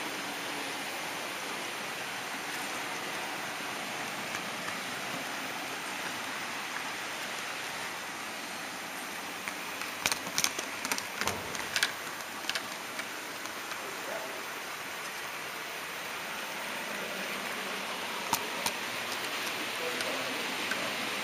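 Steady rolling hiss of a model train running along its track, with a quick cluster of sharp clicks about halfway through and two more clicks near the end.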